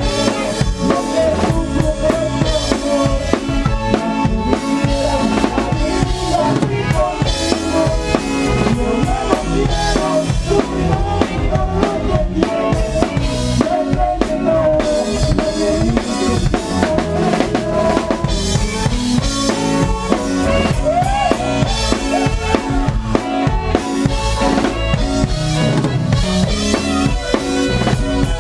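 A live Tejano band playing, with the drum kit loudest: steady kick-drum and snare hits under electric bass and a wavering pitched melody line.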